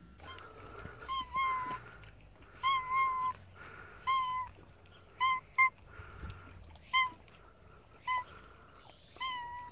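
Black-and-white cat meowing over and over: about ten short meows, roughly one a second, as it walks up.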